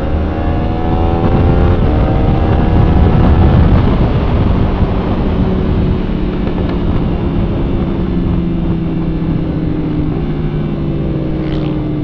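Sport motorcycle engine accelerating hard, its pitch climbing, dropping at a gear change about two seconds in, then climbing again. Heavy wind noise on the microphone is loudest a few seconds in. The engine then sinks slowly in pitch as the throttle eases.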